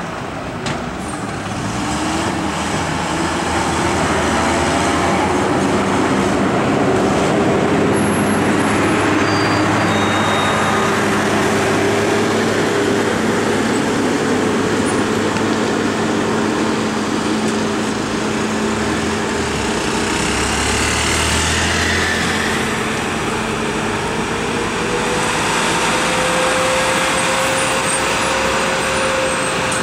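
Fully loaded truck's diesel engine running steadily at low speed as it creeps round a tight hairpin bend, its note rising slightly near the end.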